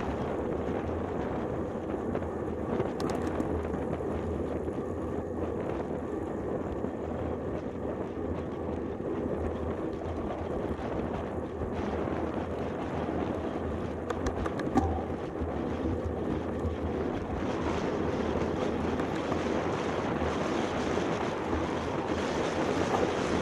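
Steady wind rush over the microphone of a camera on a moving road bike, a low rumbling noise that grows a little louder in the last few seconds.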